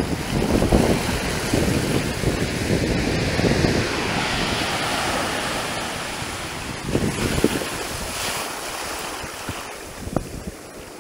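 Ocean surf washing in around the legs of someone wading in the shallows, a rushing, fizzing wash of foam, with wind buffeting the microphone. The wash eases off and grows quieter near the end.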